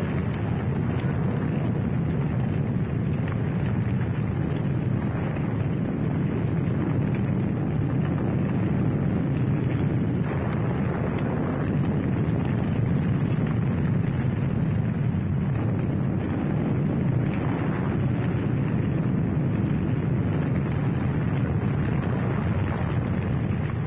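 Steady low rumble of battle noise, gunfire and explosions running together, with no single blast standing out.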